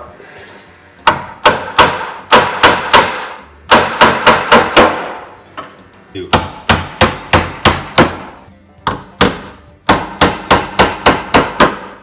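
Claw hammer driving nails through a plywood top into a wooden frame: runs of several quick, sharp blows, with short pauses between runs.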